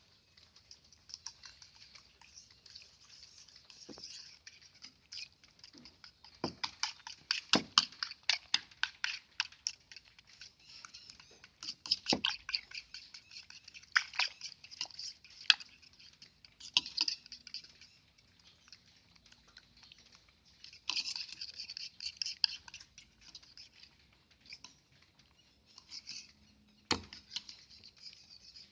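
Kitchen utensils and containers being handled while making ice cream: irregular sharp clicks and crackling scrapes in bursts, with short pauses between them.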